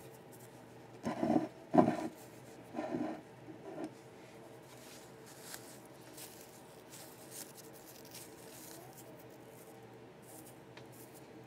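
Fingers pressing and rubbing dried moss onto a glued stand: soft rustling and handling sounds, with four short bumps in the first four seconds, the loudest about two seconds in, then only faint rubbing.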